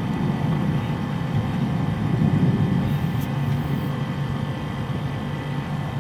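Outdoor condensing unit of a split air conditioner running: a steady compressor hum with fixed tones, over the rushing of the condenser fan.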